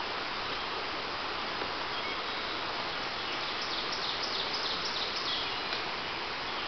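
Steady rush of a rocky creek's water. A bird chirps quickly a few times about halfway through.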